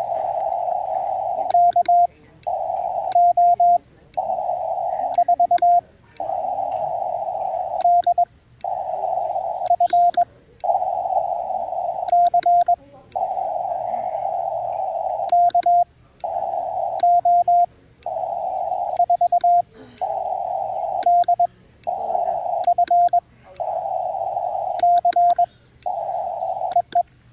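Shortwave transceiver tuned to Morse code on the 20-metre band: a steady hiss of band noise through a narrow CW filter. About every two seconds a short, louder burst of Morse tone cuts in, followed by a brief dropout.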